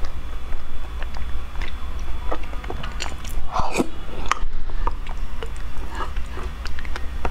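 Close-up mouth sounds of eating a thick, gelatinous starch paste off a wooden spoon: wet smacking and a slurp about three and a half seconds in, with scattered light clicks of the spoon against a glass mug over a steady low hum.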